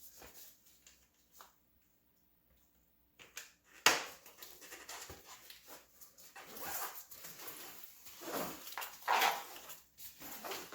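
A plastic tyre lever levering a mountain-bike tyre bead off the rim: a sharp click about four seconds in, then irregular scraping and rubbing of rubber on the rim.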